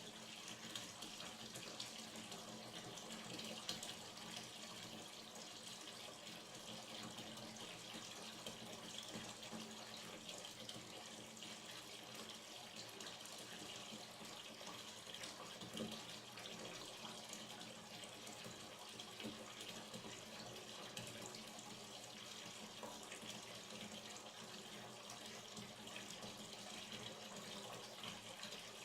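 Hot water running steadily from a tap into a bathtub as the bath fills, a constant splashing rush with a couple of brief louder splashes.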